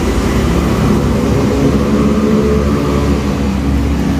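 Steady drone of a running motor: a low hum with several steady pitched tones, unchanged throughout.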